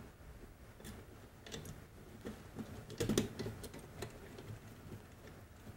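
Faint, irregular metal clicks and taps of a screwdriver and a small washer on a screw against a steel mounting bracket in a recessed light can, with a short burst of louder clicks about three seconds in.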